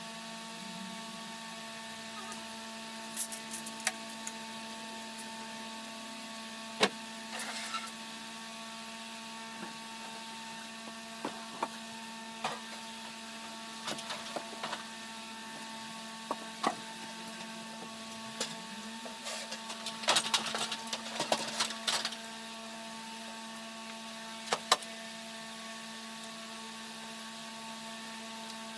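Steady electrical hum under scattered clicks and knocks of hand work, single sharp ones every few seconds and a busier cluster of rattling knocks about twenty seconds in.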